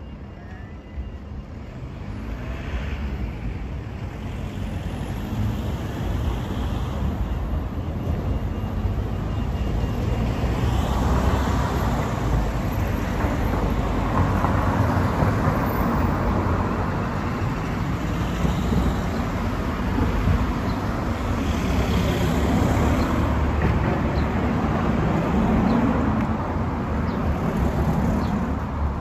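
Road traffic: a steady wash of vehicle noise that grows louder about two seconds in and stays loud, swelling and easing slowly.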